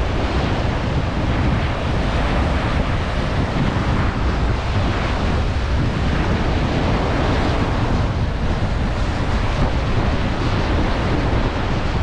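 Small ocean waves breaking and washing up a sandy shore in a steady wash, with wind buffeting the microphone in a low rumble.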